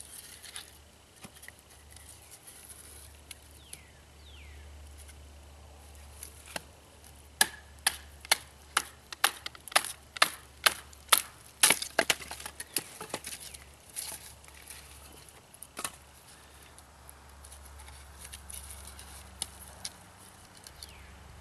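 Splitting a stick with a knife by striking it with a wooden baton: sharp wooden knocks. A quick run of about a dozen strikes, roughly two a second, comes in the middle, with a few scattered taps before and after.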